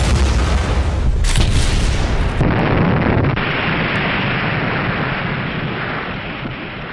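A large explosion: a sudden blast, then a long rumbling noise that slowly fades over several seconds.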